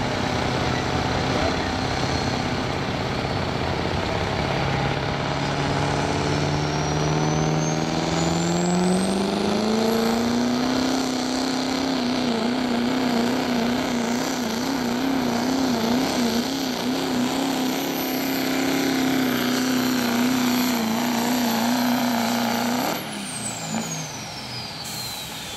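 Turbocharged diesel engine of a Chevrolet pickup working flat out pulling a sled. Its note climbs over the first ten seconds, then holds high with a wavering pitch, and a high turbo whistle rises with it. Near the end the engine note drops off suddenly and the whistle winds down.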